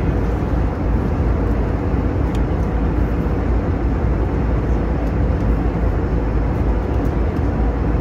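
Steady low cabin noise of an airliner in cruise flight, the engines and rushing air heard from inside the cabin near a window.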